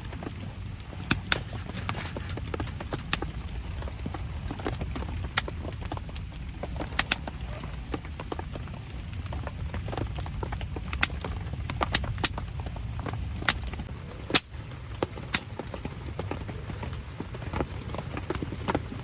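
Wood campfire crackling, with sharp irregular pops and snaps about once a second over a steady low rushing noise.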